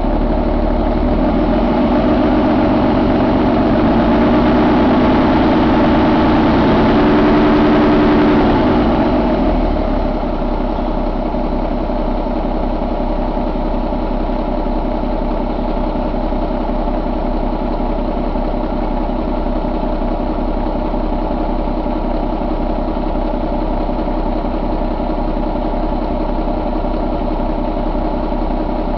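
Paccar MX13 inline-six diesel engine running. It is held faster and louder for the first several seconds, then drops back about ten seconds in and idles steadily.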